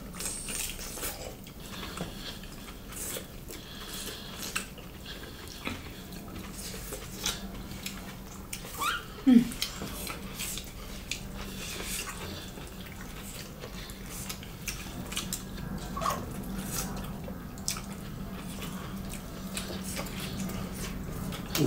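Two people eating mushrooms and rice with their hands: wet chewing and lip-smacking with many small clicks, fingers squishing food on the plates, over a faint steady hum. About nine seconds in comes a brief sound falling in pitch, the loudest moment.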